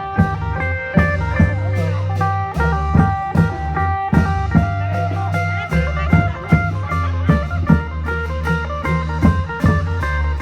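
Isan folk music: a phin (plucked lute) playing a lai melody over a steady low drone, with drum beats about twice a second.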